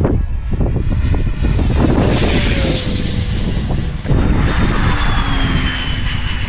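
Freewing F-16 RC jet's 90 mm electric ducted fan at full throttle, a high whine that drops in pitch as the jet passes by, and again from about four seconds in. Heavy wind buffets the microphone underneath.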